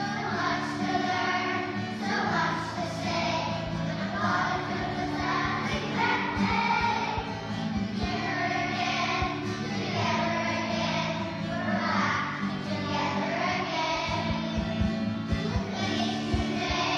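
A class of young children singing a song together in unison, over sustained instrumental accompaniment.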